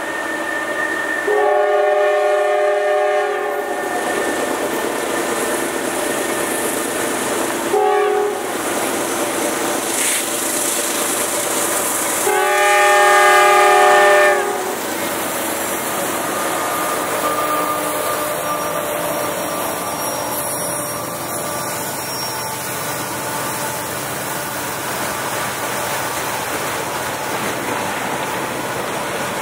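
Diesel freight train with two locomotives pulling upgrade: its horn sounds three times, long, short, long. The locomotives then pass working hard, followed by freight cars rolling by with steady wheel clatter.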